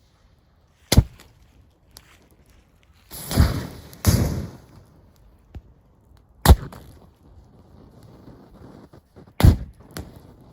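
Disposable gas lighters bursting one after another in a campfire: three sharp bangs, the first about a second in and the last near the end, with two longer rushing bursts close together in between.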